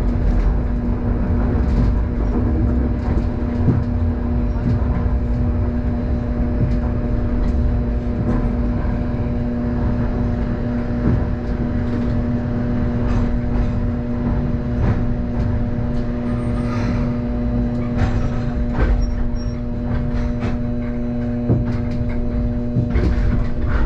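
Hakodate city streetcar running along its street track, heard from inside the car: a steady low rumble of wheels on rail under an even electric hum, with scattered short clicks and rattles.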